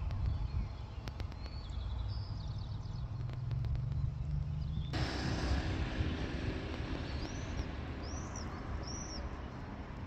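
Outdoor ambient noise: a low rumble that changes abruptly about halfway through to a steadier hiss, with a bird chirping three times near the end.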